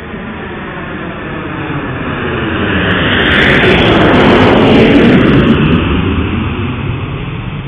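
Jet aircraft flyby sound effect: the jet noise swells to a peak about four to five seconds in and then fades away, with a sweeping whoosh running through it as the plane passes.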